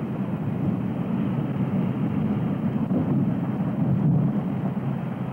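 Steady, low rumbling roar of the 1958 Ripple Rock underwater explosion, in a muffled, low-fidelity archival broadcast recording with no high end.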